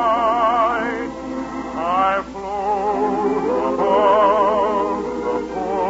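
Orchestral music from a radio operetta: long held melody notes with a strong vibrato over a full accompaniment, broken about two seconds in by a quick upward run.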